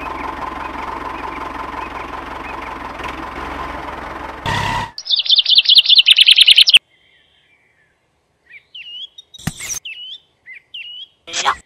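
A steady mechanical running noise with a faint whine for about five seconds, then a loud, fast trill of repeated high bird notes that stops abruptly, followed after a short pause by scattered songbird chirps and tweets with a couple of sharp clicks.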